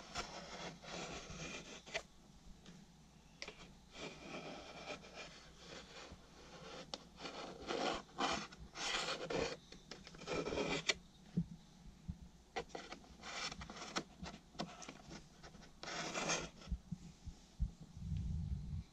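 Irregular rubbing and scraping strokes against wooden tongue-and-groove ceiling cladding around a plastic duct pipe as a line is pencilled onto it for cutting.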